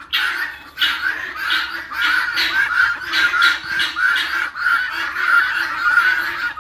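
Domestic guinea fowl calling: harsh, raspy chattering calls repeated over and over, about two or three a second.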